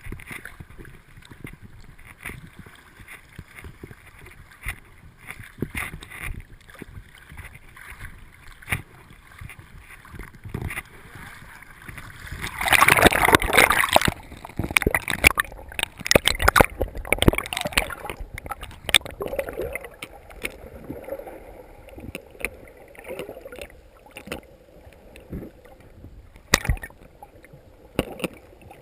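Water sloshing and splashing around a small rowing boat, with scattered knocks on the hull and a louder burst of splashing about halfway through.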